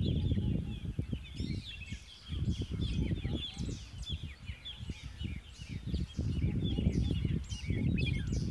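Many small birds chirping and twittering at once, with gusts of wind rumbling on the microphone that ease off for a few seconds in the middle.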